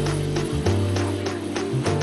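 Background music with a quick steady beat, a bass line and short plucked notes.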